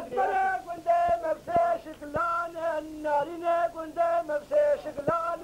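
A man singing a Kurdish dengbêj folk song solo and unaccompanied, in long wavering held notes with short breaks between phrases.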